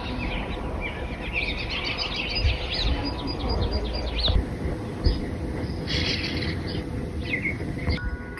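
Small songbirds chirping and calling in quick, short sweeps, busiest in the first half and sparser later, over a steady low rumble.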